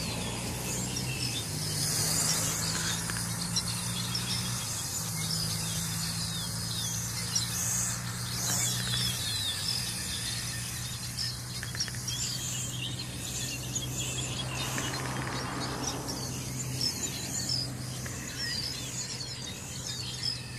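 Small birds chirping and twittering in quick short calls, over a steady low hum and passing swells of rushing noise.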